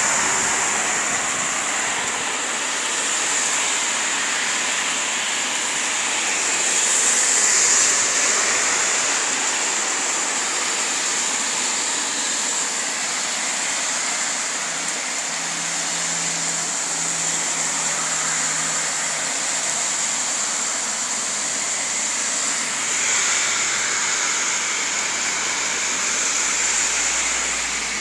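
Heavy rain falling as a steady, even downpour, swelling briefly about seven seconds in.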